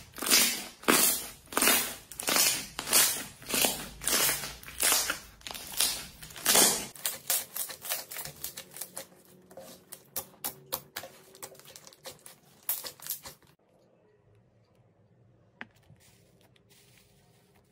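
Slime being squeezed and pressed by hand, giving loud sticky pops about two a second, then a run of quicker, smaller crackles that stops about three-quarters of the way through.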